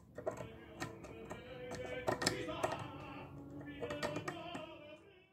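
Background music with held tones, over light, irregular clicks and taps of a wooden-handled hand carving tool working a small resin figure; the sound fades out near the end.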